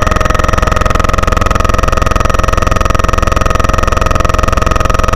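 Helicopter in flight, heard from inside the cabin: steady, loud engine and rotor noise with a constant high whine and a fast, even beat.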